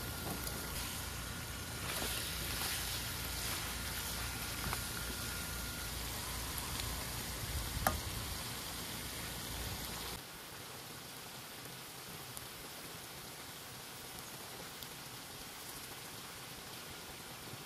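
Duck pieces and yam frying in a stainless steel pan, with a steady sizzle. Tongs click sharply against the pan about eight seconds in. A low rumble underneath cuts off abruptly about ten seconds in, and the sizzle goes on a little quieter.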